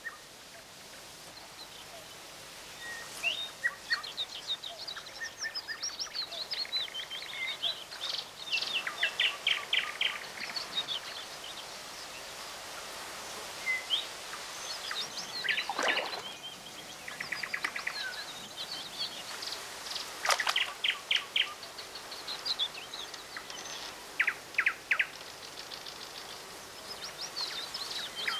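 Small songbirds singing and calling: many quick chirps and several rapid rattling trills, over a faint steady outdoor hiss.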